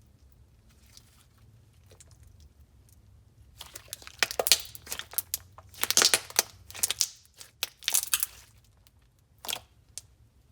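Hands squishing and stretching a basic slime, making a quick run of sticky crackles and pops that starts after a few quiet seconds and lasts about five seconds, with one more pop near the end.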